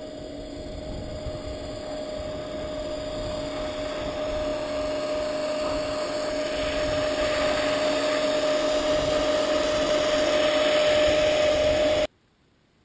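Whine of a Tamiya CC-01 RC crawler's electric motor and gears at a steady pitch, with a rushing noise behind it, growing steadily louder; it cuts off abruptly near the end.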